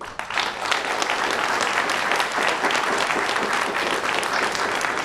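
Audience applauding steadily: many people clapping at the end of a lecture, swelling in the first half second.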